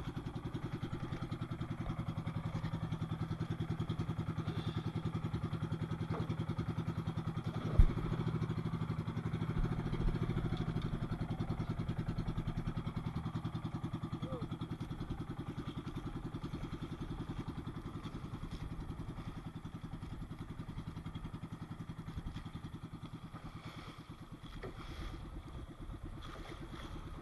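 Small boat engine of a motorised outrigger fishing boat running steadily at an even pitch, with one sharp knock about eight seconds in.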